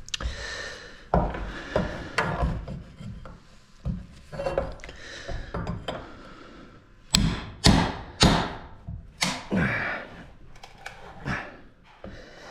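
Knocking and scraping on wooden 2x4 framing as a nail is worked out, then a run of sharp nailing strikes into the wood about two-thirds of the way through.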